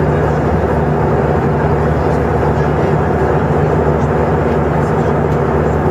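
Steady cabin noise inside an Airbus A319 in flight: an even rushing of airflow and engine sound over a steady low hum.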